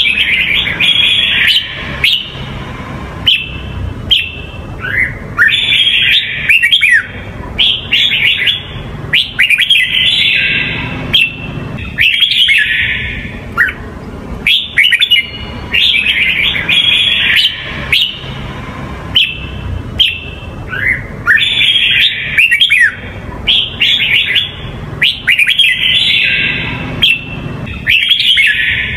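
Caged red-whiskered bulbul singing: short phrases of rapid, clear whistled notes, repeated every second or two, over a low background hum.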